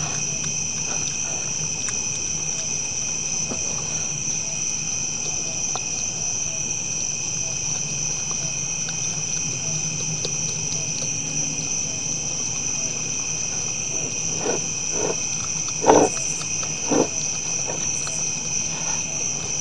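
Steady chorus of night insects trilling. Near the end, several short, louder sounds from the whitetail deer feeding at the feeders, the loudest about 16 seconds in.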